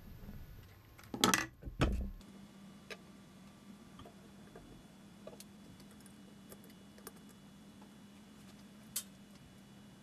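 Small metal clicks and rattles of a padlock being handled and hooked onto a welded-steel railing, ending in a sharp click near the end as the shackle snaps shut. A few loud knocks come about a second in, before the handling.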